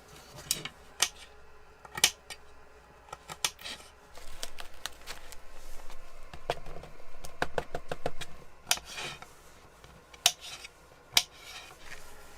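Dishes and kitchen utensils being handled on a counter: scattered clinks and knocks, the loudest about two seconds in and twice near the end, with a stretch of busier, softer clatter in between.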